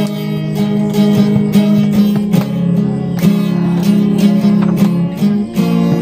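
Acoustic guitar music, chords strummed in a steady rhythm.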